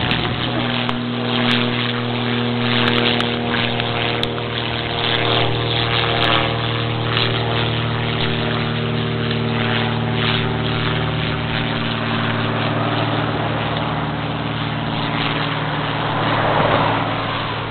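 A steady engine or motor drone with an even, unchanging pitch, swelling briefly near the end.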